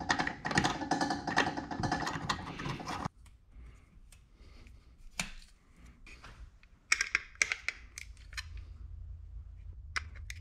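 Dense clicks and plastic rattles of a belt cover being pushed onto a garage door opener's rail by hand. After a sudden cut, scattered small clicks and scrapes of a pocketknife stripping thin bell wire.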